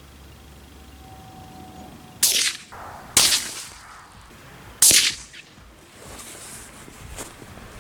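Three sharp shots from a CZ 457 bolt-action rifle in .17 HMR, about a second and then a second and a half apart, each with a short echoing tail.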